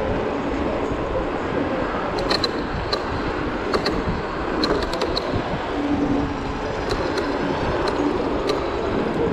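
Steady wind and road noise from riding a Zero 10x electric scooter down a city street at speed, with a dozen or so sharp clicks scattered through.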